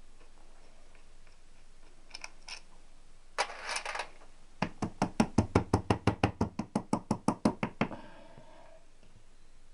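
A rapid, even run of about two dozen sharp knocks, roughly eight a second for about three seconds, from hand work on a Triumph T120 engine being dismantled. A short scraping rustle comes just before it.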